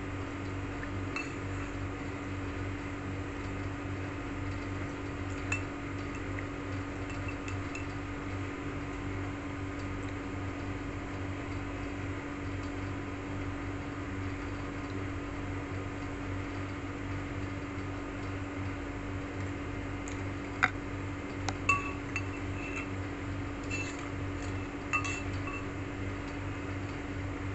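Steady low hum with a few sharp clinks of a fork against a ceramic bowl: one about five seconds in, then a cluster near the end.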